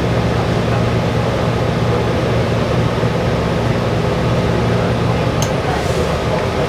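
Steady hum and rumble inside a New Flyer XDE60 diesel-electric hybrid articulated bus as it runs, with a faint tick about five and a half seconds in.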